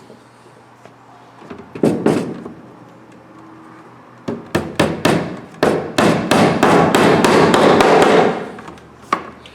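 Hammering: two knocks, then a run of quick strikes that thickens into a dense clatter for about two seconds, and one last knock near the end.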